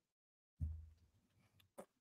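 Near silence in a pause between talkers: room tone, with a brief low sound about half a second in that fades quickly, and a faint click near the end.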